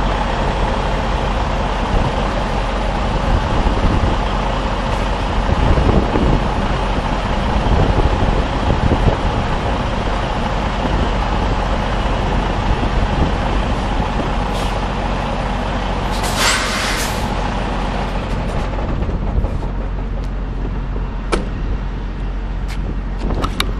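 Semi-truck diesel engine running steadily while the tractor-trailer is maneuvered into a parking spot, with a short, loud hiss of air from the air brakes about two-thirds of the way through.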